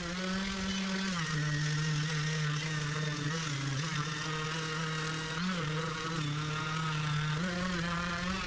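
Orbital sander with 60-grit paper running against hardened epoxy fairing compound on a sailboat keel, a steady motor hum with a gritty hiss over it. Its pitch dips and recovers several times.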